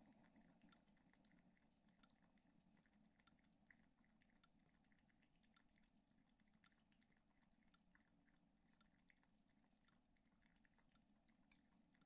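Braun Type 3104 drip coffee maker near the end of its brew cycle: faint, irregular small ticks and drips over a low steady hum.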